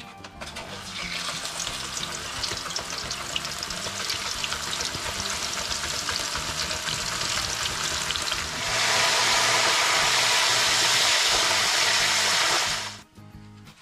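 Raw green banana slices dropping from a hand slicer into hot oil in a wok, sizzling with many small pops as they begin to deep-fry into banana chips. A bit under nine seconds in, the sizzle jumps to a loud, steady hiss of a full pan of slices frying, then stops abruptly about a second before the end.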